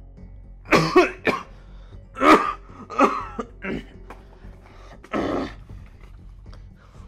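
A man coughing hoarsely several times and clearing his throat, ending with one longer, rougher cough about five seconds in.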